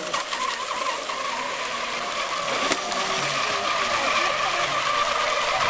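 Several radio-controlled racing hydroplanes running flat out, their small high-revving engines making a steady high whine that wavers slightly as they race.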